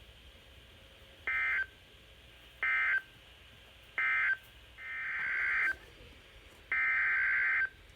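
NOAA Weather Radio SAME digital data bursts, a buzzy two-tone warble: three short bursts about a second and a half apart, typical of the end-of-message code closing the previous broadcast, then two longer bursts, typical of the header that opens the next alert.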